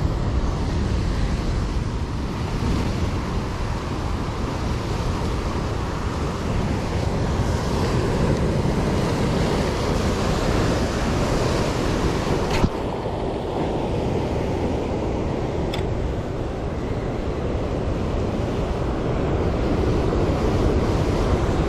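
Sea surf breaking and washing over rocks, a steady rushing, with wind buffeting the microphone. Two sharp clicks sound, one about two-thirds of the way through and another about three seconds later.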